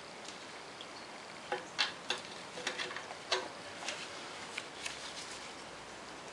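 Brake fluid dripping from a disconnected brake caliper into a bucket: irregular sharp drips, starting about a second and a half in.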